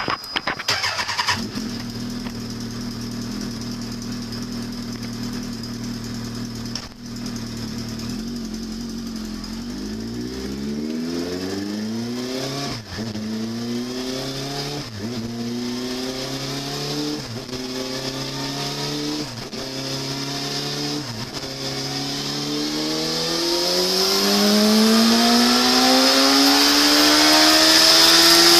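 The 2015 Chevrolet Tahoe's V8 engine idles steadily. From about ten seconds in it revs up and falls back several times, then climbs to a long, louder rev near the end. The engine has a misfire on cylinder 8.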